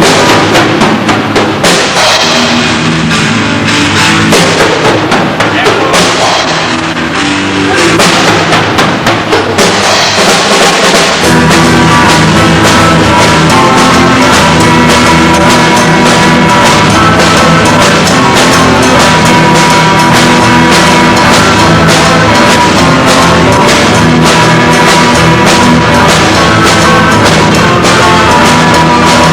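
Rock band playing live at their sound check: drum kit and amplified instruments, very loud. The playing thickens into a full band sound with a steady level about eleven seconds in.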